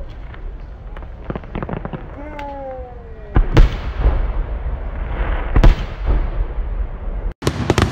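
Aerial fireworks shells bursting: crackling pops in the first two seconds, then two loud, deep booms about two seconds apart, roughly three and a half and five and a half seconds in, and a fresh burst of crackling near the end.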